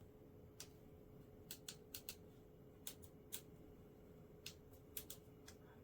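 Near silence: a faint steady hum with about a dozen light, irregular clicks scattered through it.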